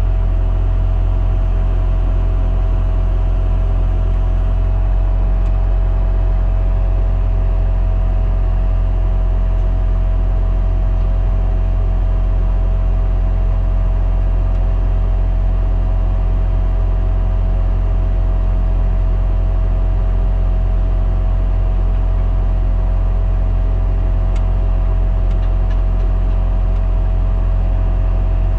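Bobcat skid steer's diesel engine running steadily, heard from inside the cab: a constant low drone with a steady higher whine over it.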